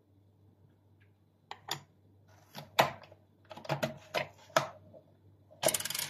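Hard plastic clicks and knocks from a Dyson vacuum motorhead being handled as its cleaned brush bar is put back and the head is closed up. The clicks are irregular, starting about a second and a half in, with a quick rattling run just before the end.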